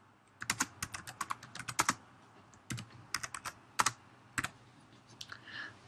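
Typing on a computer keyboard: two quick runs of key clicks, then a few single keystrokes.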